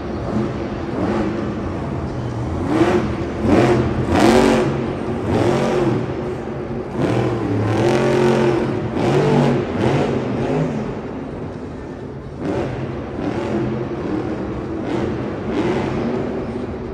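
Monster truck's supercharged V8 revving hard again and again, its pitch rising and falling with each throttle stab, loudest in surges about four and eight seconds in.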